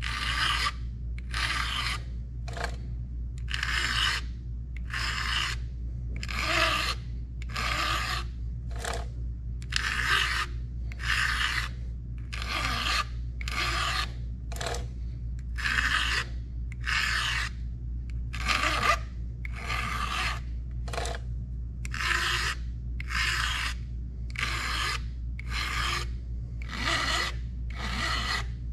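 A flat file rasping across the depth gauges (rakers) of a Stihl 33 RS full-chisel chainsaw chain held in a vise, in short strokes about once a second as each raker is lowered. A steady low hum runs underneath.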